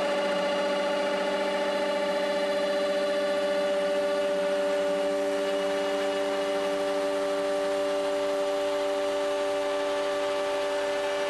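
High-speed router motor of a CNC stair router running at a steady pitch as its bit cuts a groove into a wooden stair stringer: a constant whine that neither rises nor falls.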